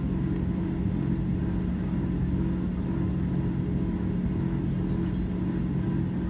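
Airbus A321 jet engines at low taxi power, heard from inside the cabin as a steady drone with a constant low hum and rumble.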